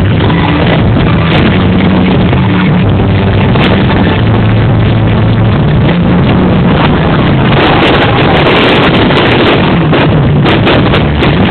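Fireworks display over loud music from loudspeakers, the recording overloaded and distorted. Sharp crackles and bangs come thicker in the second half.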